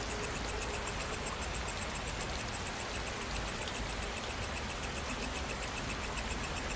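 Steady rain, an even hiss, with night insects chirping in a rapid, even pulse high above it.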